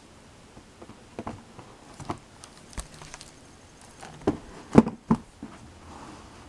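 Handling noise from a hardcover sound book with a plastic button panel being turned over and set down on a table: a scatter of knocks, taps and rubs, the loudest knock about five seconds in as it comes to rest flat.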